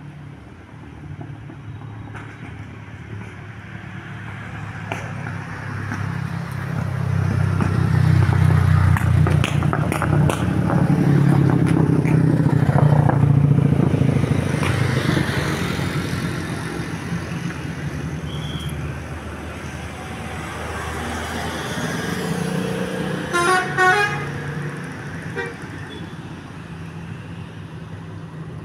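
Heavy bus engine rumble swelling as the bus passes and then fading. About three-quarters of the way through comes a short burst of a Basuri V3 telolet horn, its several musical tones stepping in quick succession.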